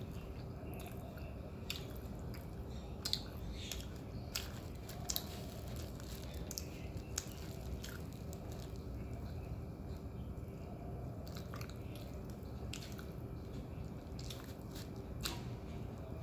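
Roti prata being chewed with open-mouth eating sounds and torn apart by hand, with scattered short crackles.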